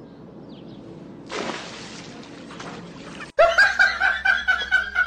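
A short rush of water noise, like a splash, about a second in, fading away. After a cut, loud rapid hearty laughing in quick pulses from about three seconds in.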